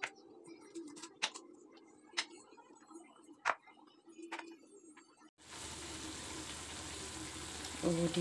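Quiet eating with sharp lip-smacking clicks about once a second. About five seconds in, it switches suddenly to the steady sizzle of vegetables stir-frying in a pan.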